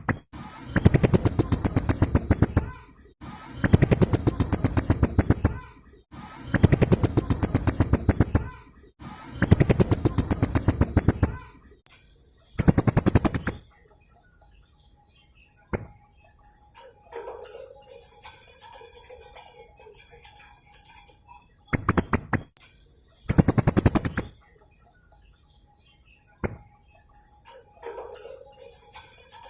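Blue-crowned hanging parrot (serindit) giving its rapid-fire 'tembakan' call: high-pitched rattling trills, each one to two seconds of fast shrill clicks. Five bursts come in close succession, then two more after a long pause.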